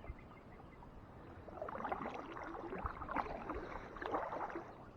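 Kayak paddle dipping and splashing in calm lake water, with drips, in about three soft strokes starting about a second and a half in.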